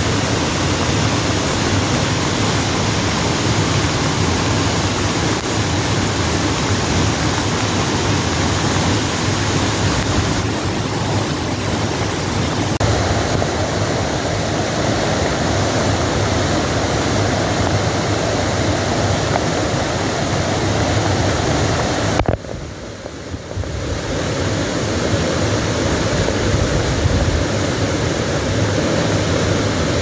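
Waterfall plunging into a rock pool: a loud, steady rush of falling water, which drops sharply for a moment about two-thirds of the way through before building back up.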